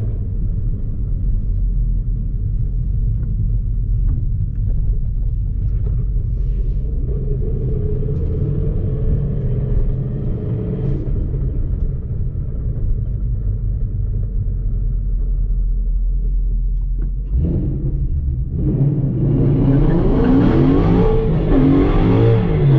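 2012 Ford Boss 302 Mustang's 5.0-litre V8 idling with a steady low rumble. About two-thirds of the way in the note changes, then the engine revs up under acceleration, its pitch climbing and falling repeatedly near the end as the car makes a hard run.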